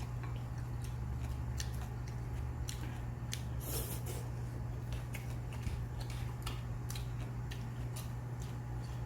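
Eating at the table: chewing and small crunches with scattered sharp clicks of spoon and chopsticks, and a brief louder crunch or slurp about three and a half seconds in, over a steady low hum.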